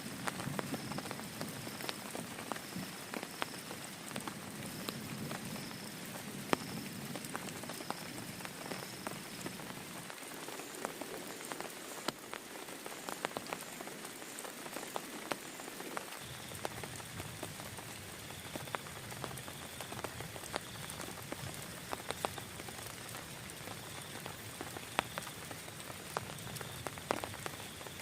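Steady rain falling hard, with many separate drop impacts ticking on a surface. Behind it, a faint high-pitched call repeats about once a second, its pitch changing twice.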